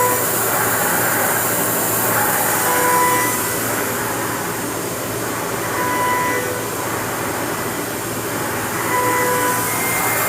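CNC milling machine cutting during a barrel-tool finishing pass: a steady hiss with a low hum, and a short ringing tone that comes back about every three seconds.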